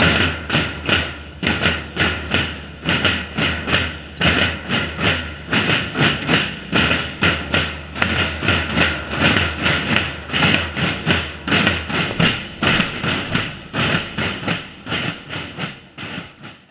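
Drum group of snare and bass drums struck with sticks, playing a steady fast rhythm with about two to three strong accents a second, fading out at the end.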